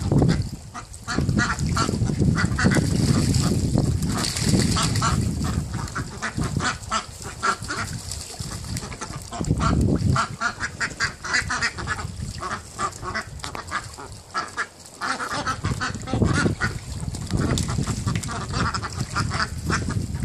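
A flock of Indian Runner ducks quacking, many short calls in quick runs, over stretches of low rumbling noise.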